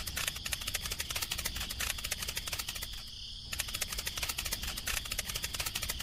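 Insects chirring: a steady, rapid ticking of about ten pulses a second over a high ring, breaking off briefly about halfway through.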